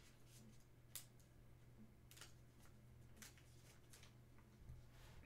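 Near silence: a faint steady low hum of room tone, with a few soft clicks from a hand handling a trading card.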